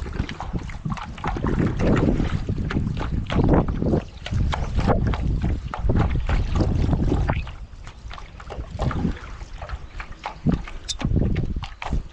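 Strong wind buffeting the microphone in irregular gusts, with water splashing and sloshing as a race paddleboard is paddled into a headwind.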